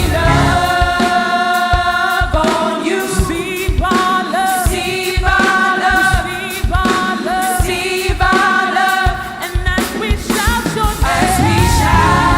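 Gospel worship music: a choir singing long held notes, some with vibrato, over a live band with steady drum hits; the bass drops away for a few seconds in the middle.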